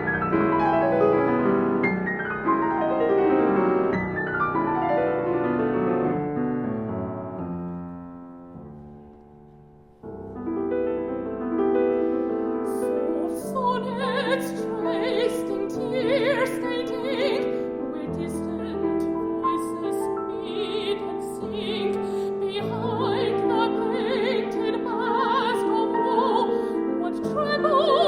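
Art song for voice and piano. The piano plays falling runs that die away to almost nothing about ten seconds in. Then the piano comes back in and a singer enters in Peking Opera style, with a strongly wavering pitch.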